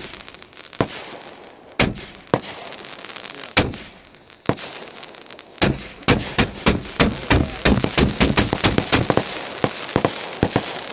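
Fireworks bursting overhead: a few separate bangs in the first five seconds, then a rapid string of bangs at about five a second from around the middle until near the end.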